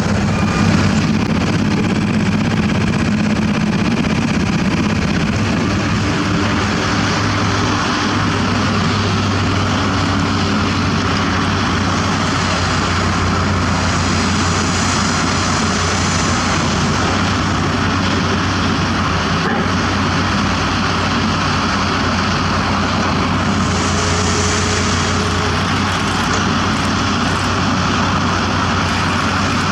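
Diesel engine of heavy earthmoving machinery running steadily under work, a continuous low drone.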